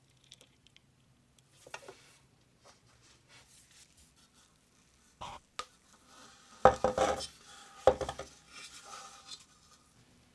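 Metal parts of an oil lamp clinking and knocking as they are handled, with a few light clicks, two sharp knocks, then two louder bursts of clattering a little past the middle.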